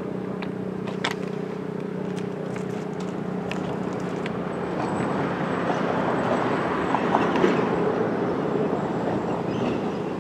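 Outdoor warning siren sounding a steady tone that fades out about four and a half seconds in, after which a louder rushing noise takes over.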